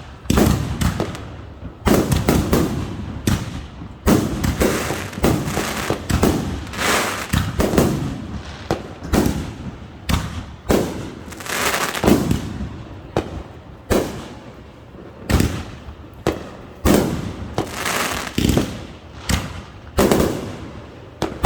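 Fireworks going off in a steady barrage: loud bursts at irregular intervals of about one to two seconds, each fading out over about a second, with crackling throughout.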